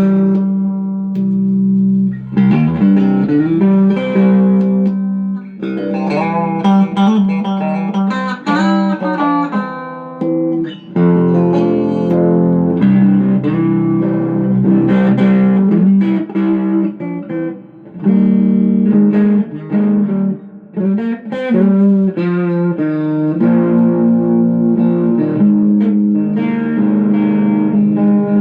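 Music on a plucked string instrument: a run of notes with sliding, bending pitches over a steadily held lower note.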